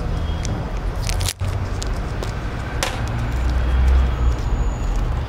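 Light clicks and knocks of a plastic CCTV camera junction box and its lid screw being handled, two sharper clicks about one and three seconds in, over a steady low rumble.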